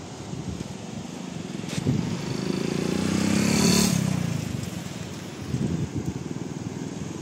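A motor vehicle drives past, its engine growing louder to a peak about four seconds in, dropping in pitch as it passes, then fading away.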